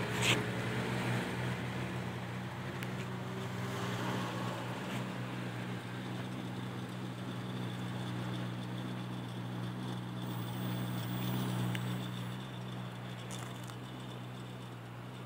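Maserati Quattroporte's V8 idling steadily, heard close behind at its quad exhaust tips. A brief knock comes right at the start.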